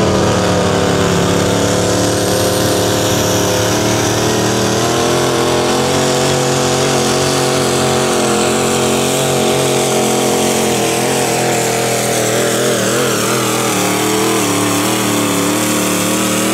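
Pro stock diesel pulling truck's turbocharged diesel engine running flat out under load as it drags the pulling sled, a steady engine note with a high whistle slowly falling in pitch above it. The pitch wavers a little in the second half of the pull.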